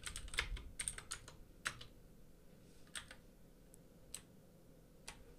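Computer keyboard typing: a quick run of keystrokes in the first second or two, then a few single key taps about a second apart.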